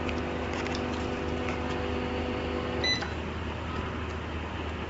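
LCD separator machine humming steadily. The hum cuts off about three seconds in with a short electronic beep as the machine switches off.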